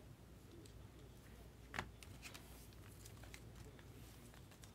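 Near silence: room tone with a low hum, broken by a few faint ticks and one clearer click about two seconds in as trading cards in plastic sleeves are handled.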